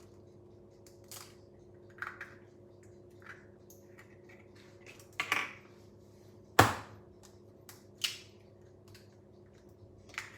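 Eggs being tapped and cracked against a mixing bowl: a series of short knocks and clicks, the sharpest and loudest about six and a half seconds in. A faint steady hum runs underneath.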